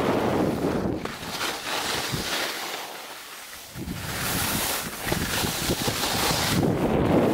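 Wind buffeting the camera's microphone during a ski run, with the skis hissing and scraping over the snow. It eases for a moment about halfway through, then picks up again.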